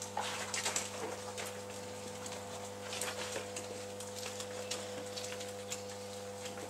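Calf barn ambience: scattered short clicks, knocks and brief chirps from the pens over a steady low hum.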